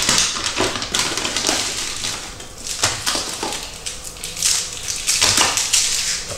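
Plastic candy wrappers, the bag and foil of Kinder Schoko-Bons, crinkling as they are handled and unwrapped by hand: a run of short crackling rustles.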